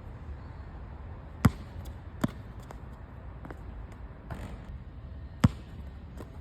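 Basketball hitting a hard court: two loud sharp bounces about four seconds apart, with a softer hit shortly after the first and a few faint knocks between.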